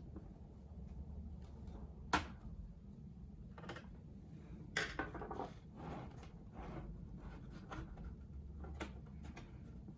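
Scattered plastic clicks and light scraping as the Dell Inspiron 15-3567 laptop's plastic base cover is pried loose around its edge: a sharp click about two seconds in, a cluster of clicks around the middle, and another near the end, over a low steady hum.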